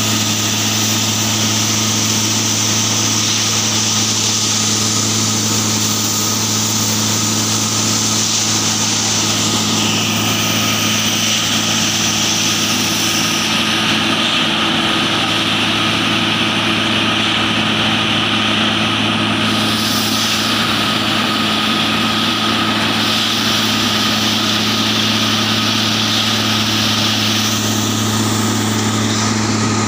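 Plasser & Theurer 09-32 CSM continuous-action tamping machine working the track. Its engine and hydraulics run with a steady low hum and a thin whine, over a hiss that strengthens and fades every few seconds.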